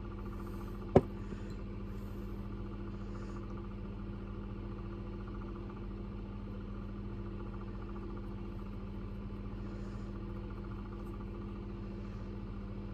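A steady low hum with several faint higher tones layered on it, and a single sharp click about a second in.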